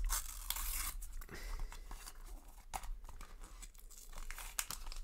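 A Panini sticker pack's wrapper being torn open and crinkled by hand, in irregular rustling bursts, with the stickers inside rubbing as they are pulled out.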